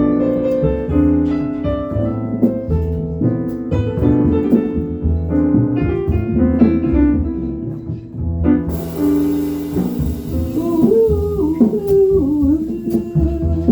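Live jazz intro on piano and upright bass. Cymbals come in about nine seconds in, and a wavering melody line enters shortly after.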